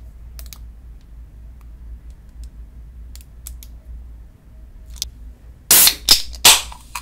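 An aluminium can of Pepsi cola being cracked open near the end, the tab popping and the soda fizzing out in a few loud hisses. Before that come only faint small clicks from a squeeze bottle of mayonnaise being worked.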